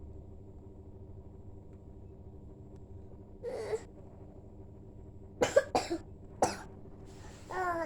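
A young child sick with a cough and fever coughing: a short vocal sound, then three sharp coughs in quick succession a couple of seconds later. The child's voice starts up near the end, over a faint steady hum.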